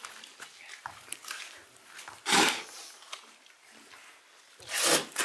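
Two short, loud, animal-like cries, dog-like, from a human performer, about two and a half seconds apart, with faint shuffling between them.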